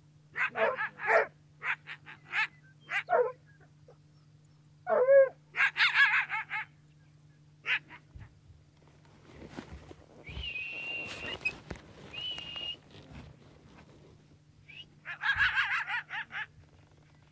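Coyote barking and yipping in quick, sharp bursts, with one falling bark-howl about five seconds in and another burst of calls near the end. Around the middle there is a few seconds of rustling with a high, steady tone.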